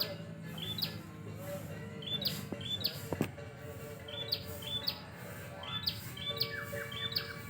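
Caged songbirds chirping: short, sharp notes repeated about twice a second, over a steady lower background of held tones.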